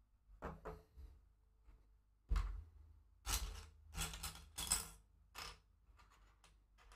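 Loose plastic LEGO bricks clattering and rustling as a hand rummages through a pile of pieces on a table, with a sharp knock about two seconds in and the busiest clatter a second or so later.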